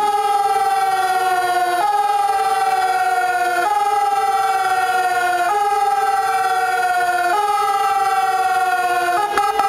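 Siren-like synth effect in a DJ's electronic dance track, played through a club sound system with the bass and beat dropped out: a high tone glides slowly down, then jumps back up, repeating about every two seconds. Near the end it breaks into rapid stuttering chops.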